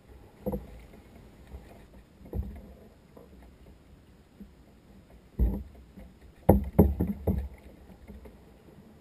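Knocks and thumps on a plastic sit-on-top kayak as a person moves about and stands on its deck: single knocks about half a second and two and a half seconds in, then a louder run of several between about five and a half and seven and a half seconds in.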